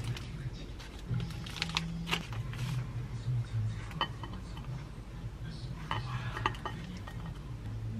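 Light kitchen handling: a paper snack pouch rustling as a rice chip is pulled out, then a few sharp clinks and taps against a ceramic plate as the chip is pushed into the salad.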